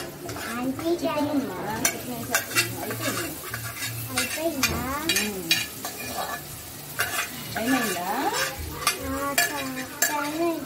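Leftover chicken curry sizzling in a non-stick kadai as a steel spoon stirs it into the fried onion-tomato masala, the spoon clicking and scraping against the pan many times. A wavering pitched sound runs in the background.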